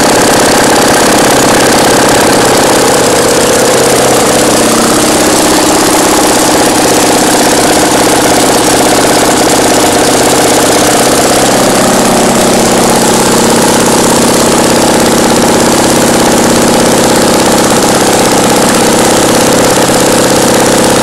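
Fiat 650cc engine running steadily on a bench, loud and close up, with a small shift in its note about halfway through.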